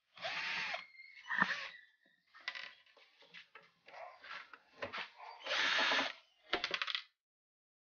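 INGCO cordless drill-driver backing out the casing screws of an inverter welding machine, its motor running in a series of short bursts that stop about seven seconds in.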